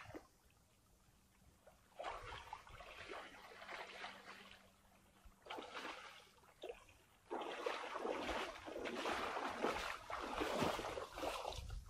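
Water splashing and sloshing in irregular bursts: quiet at first, then splashes from about two seconds in, growing denser and louder from about seven seconds in.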